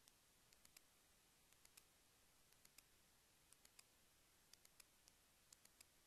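Near silence with faint hiss, broken by faint sharp clicks in groups of two or three that repeat very evenly about once a second.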